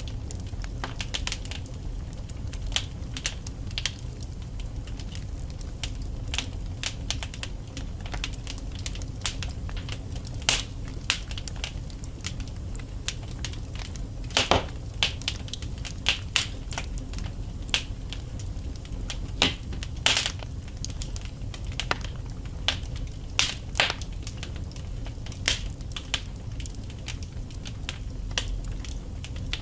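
Wood fire burning in a fireplace: a steady low rumble of the flames with irregular sharp crackles and pops from the burning logs, a few of them louder.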